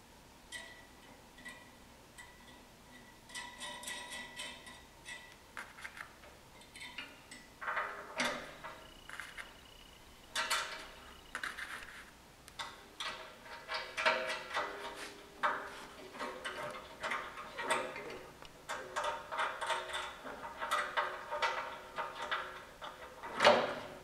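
Irregular metallic clinks, rattles and scrapes of snowplow spring hardware being handled: steel coil springs, eye bolts, nuts and washers, with nuts threaded on by hand and a few short rings of metal. The clatter grows busier from about eight seconds in.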